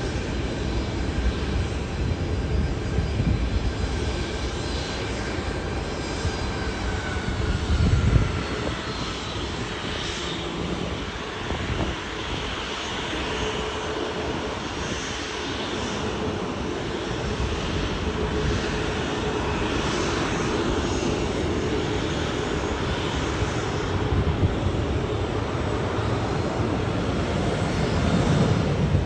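Jet airliner engines running steadily: an even rushing noise with a thin whine on top. Wind buffets the microphone in low gusts, strongest about eight seconds in and near the end.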